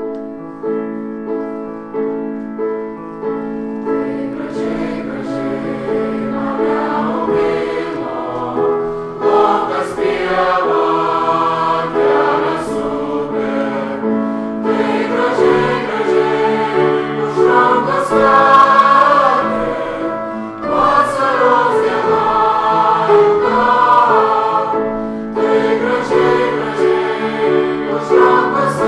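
Choral music: a choir singing, opening on held chords before the voices move into flowing sung phrases about four seconds in.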